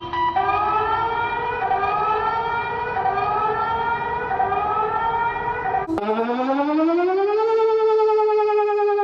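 Emergency alert alarm audio. A steady droning tone carries rising sweeps that repeat about once a second. About six seconds in it switches abruptly to a siren wail that climbs over a second or so and then slowly falls.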